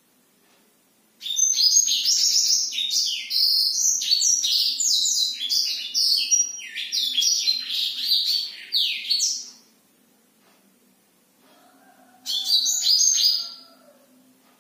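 Caged black-throated canary (blackthroat) singing a long, rapid, varied song of high chirps and trills for about eight seconds. After a short pause comes a briefer phrase with some lower, falling whistles near the end.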